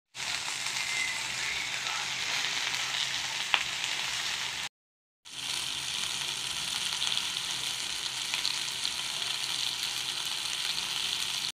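Tuyo (dried salted fish) frying in oil with onion, tomato and green chili, giving a steady sizzling hiss. There is one sharp click about three and a half seconds in, then the sound drops out for half a second and the sizzle resumes.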